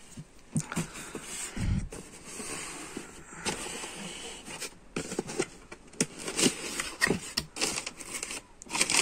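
Cardboard shoe boxes being handled: sliding and scraping, with irregular knocks and a dull thump about two seconds in. Toward the end a box lid is opened and the paper wrapping inside rustles.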